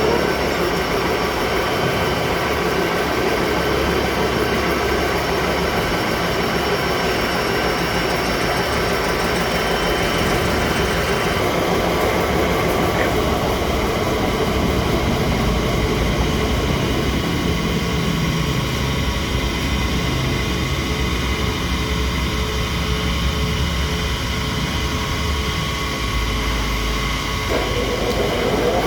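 Steady, loud machinery running continuously, its tone shifting about eleven seconds in and again near the end.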